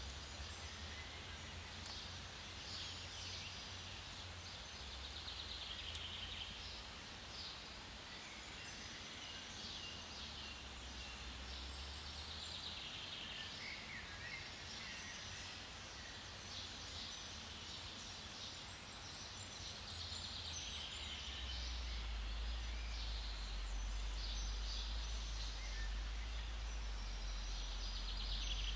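Forest birds calling and chirping, with a low rumble underneath that grows louder about three-quarters of the way through.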